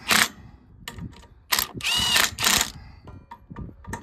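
Cordless impact wrench run in short bursts on a bolt of a wheel line's hydraulic drive: a brief burst at the start, then three quick bursts about a second and a half in, each a rattling hammer over a rising motor whine.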